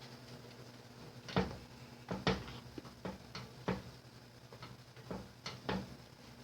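A mixing utensil knocking and scraping against a mixing bowl while folding flour into thick muffin batter: irregular clicks and knocks, about nine of them, with the loudest about a second and a half in and just after two seconds.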